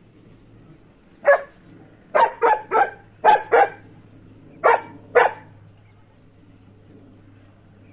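Tibetan mastiff barking at a goat in short, sharp barks, eight in all over about four seconds, coming in quick runs of two or three.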